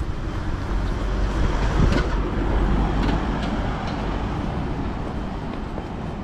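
City street traffic: a steady low rumble of passing vehicles, swelling about two seconds in and then easing off.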